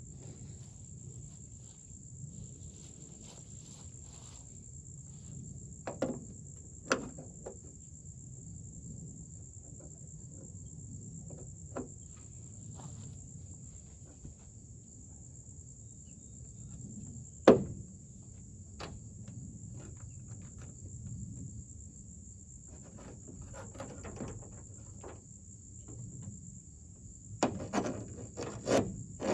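Crickets chirping in one steady high tone, under scattered light clicks and knocks of door-handle and lock parts being handled and fitted into a truck door. One sharp knock stands out about halfway, and a quicker run of knocks comes near the end.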